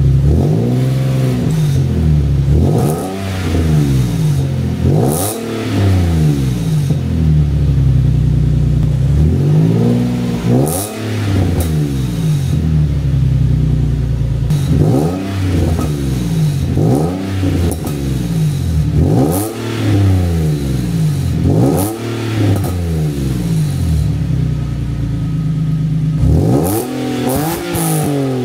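Nissan 370Z's 3.7-litre V6 running through a newly fitted Flashark catback exhaust, revved again and again in short blips whose pitch rises and falls back, with spells of steady idle between the groups of revs.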